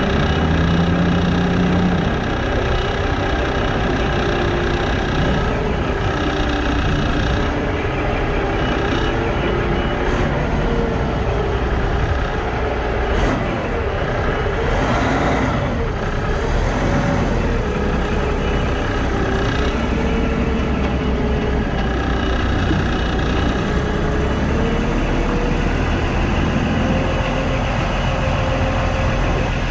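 Kenworth truck's diesel engine running under the exhaust stack, its note drifting up and down as the loaded truck moves slowly.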